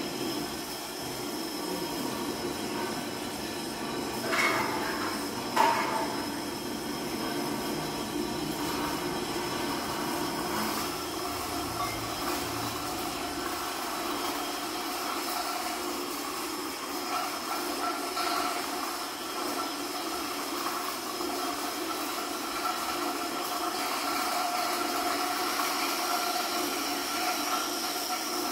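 Live amplified object and electronic sound performance: a sustained rumbling, hissing drone with several held tones that thicken in the second half. Two ringing knocks stand out about four and a half and six seconds in, as small metal and glass objects are handled.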